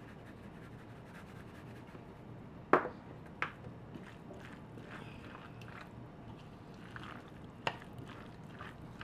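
A wooden spoon stirring a cabbage and shrimp salad coated in creamy dressing in a bowl: soft wet squishing and scraping, with a sharp knock about three seconds in and a smaller one near the end.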